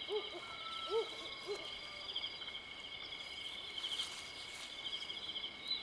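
Night-time cricket chorus, a steady high pulsing trill, with four short, low hooting calls in the first second and a half.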